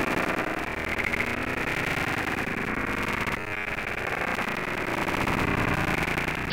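Steady, dense hiss of a thunderstorm downpour, dipping briefly about halfway through.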